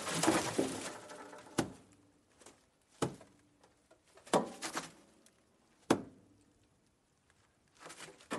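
Rabbit noises: a dense, noisy stretch that fades out about a second and a half in, then a series of short, sharp sounds roughly every second and a half.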